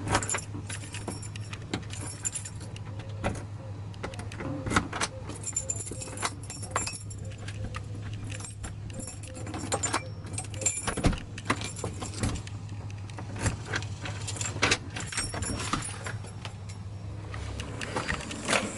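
Keys jangling and a door lock clicking and rattling as keys are worked to unlock a front door, in short irregular bursts over a steady low hum.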